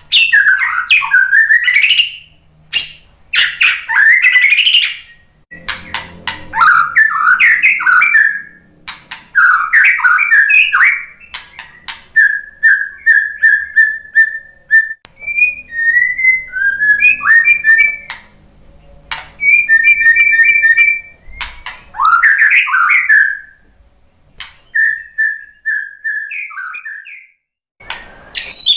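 White-rumped shama (murai batu) singing a loud, varied song: whistled phrases that sweep up and down, broken by short pauses, with runs of quick repeated notes on one pitch.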